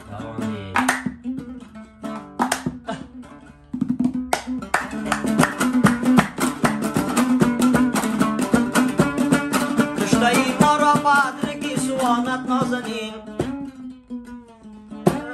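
Afghan dambura, a long-necked plucked lute, strummed in a song's instrumental passage: sparse strokes at first, then fast, dense strumming from about four seconds in.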